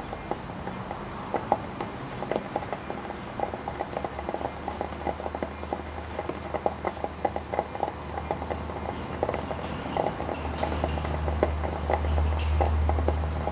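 Irregular crackling and popping from a small transformer submerged in water, its shorted, overloaded windings heating the water around them, over a low electrical hum. The hum swells about four seconds in and again past the middle, loudest near the end.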